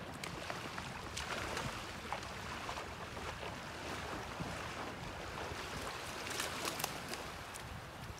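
Sea surf washing on the shore in a steady rush, with short crackling splashes about a second in and again after six seconds.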